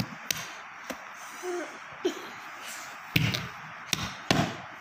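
Hands slapping and knocking on a plastic hotpot (insulated roti container): irregular thumps and taps, the heaviest coming about three seconds in and again just after four seconds.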